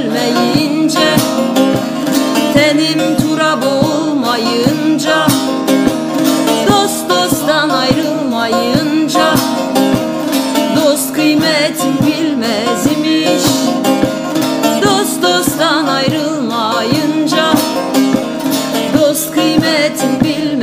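Two bağlamas (long-necked Turkish saz lutes) played together with fast, steady plucking, carrying the melody of an Alevi folk song.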